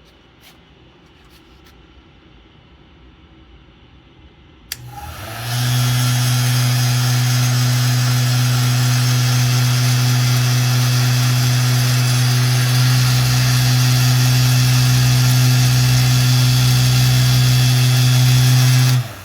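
Electric fan heater switched on with a click about five seconds in: its fan runs with a loud steady rushing and a strong low hum, then cuts off suddenly just before the end.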